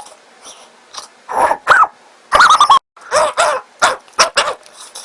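A person imitating a dog with a string of short barks and yelps, one longer call about halfway, the voice played back at double speed so it sounds high and quick.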